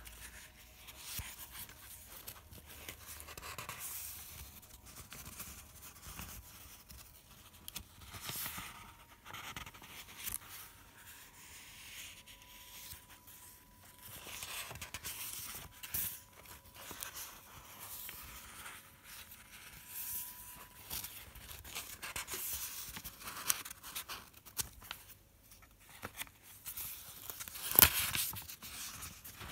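Handmade paper pages of a notebook rustling and crackling as they are turned and pressed flat by hand, with a sharper crackle of paper near the end.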